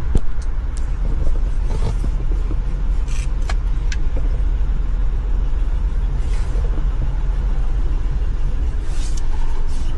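Steady low rumble of the Toyota 4Runner's engine idling, heard inside the cabin, with a few light clicks near the start and again around three to four seconds in.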